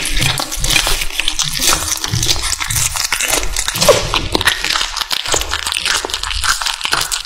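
A kitten chewing and crunching food close to the microphone: a dense, continuous run of wet crunches and clicks.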